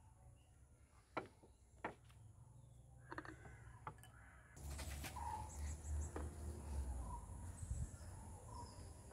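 Glass dishes set down on a wooden table: two sharp knocks and a few light clinks. From about halfway, a low wind-like rumble comes in with a few short bird calls.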